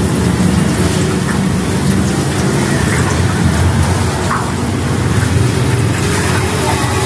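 Tahu Sumedang tofu puffs sizzling as they deep-fry in a large wok of hot oil, stirred with a wire skimmer, over a steady low rumble of road traffic.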